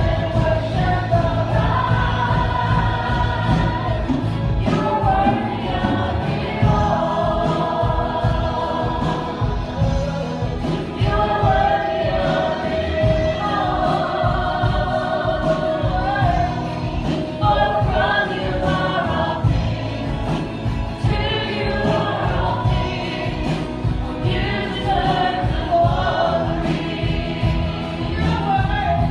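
Christian worship music: a group of voices singing together over a steady instrumental accompaniment.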